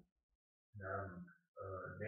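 A man speaking in Serbian after a short silent pause.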